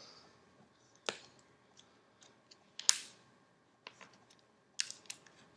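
Sharp plastic clicks and taps from a Samsung Galaxy S4 being handled and taken apart with its back cover off, about five distinct clicks with fainter ticks between them, the loudest about three seconds in.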